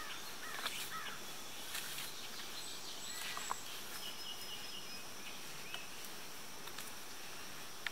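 Woodland ambience: a steady high-pitched insect drone with scattered short bird chirps. Occasional light clicks and rustles come from hands working paracord through the brush.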